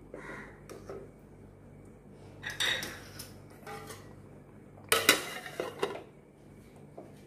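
Clinks and clatter of a spatula against an aluminium cooking pot, then an aluminium plate set down on the pot as a lid with a sharp clank about five seconds in, the loudest sound, followed by a few smaller rattles as it settles.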